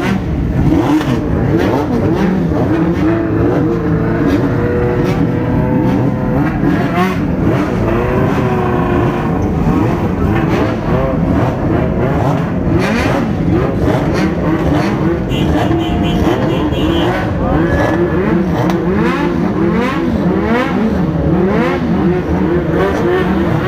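Several Honda CBX750 '7 Galo' motorcycles' inline-four engines revving together. The throttles are blipped again and again, so the overlapping engine notes keep rising and falling, with quick repeated revs near the end.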